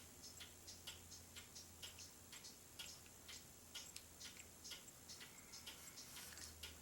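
Faint, even ticking about three times a second over a low steady hum.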